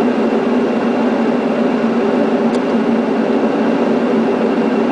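Steady cockpit noise of an MD-82 airliner on final approach with landing gear and flaps down: an even rush of airflow and engine sound with no change in pitch.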